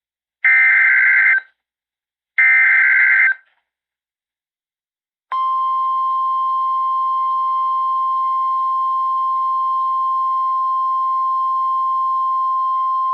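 Emergency Alert System tones on NOAA Weather Radio: the last two of the three SAME header data bursts, each about a second long with a short gap between them. After a pause of about two seconds, the steady 1050 Hz weather radio warning alarm tone starts about five seconds in, signalling that a warning message follows.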